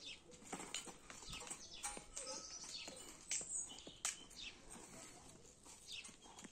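Faint outdoor background: scattered light taps and clicks, with a few short high chirps about two to three seconds in.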